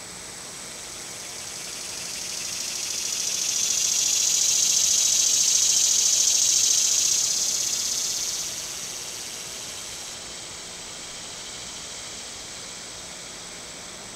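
Cicada buzzing: a high, hissy buzz that swells over a few seconds, holds, then fades away, over a steady high-pitched whine.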